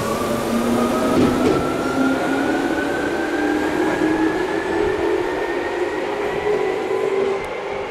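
Tokyu 8500 series field-chopper-controlled electric train accelerating: its traction motor whine climbs steadily in pitch over a lower hum and rail noise.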